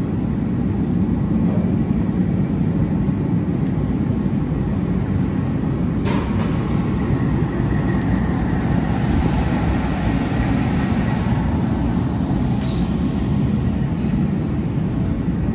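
Steady low rumbling noise with no distinct rhythm, and one short sharp click about six seconds in.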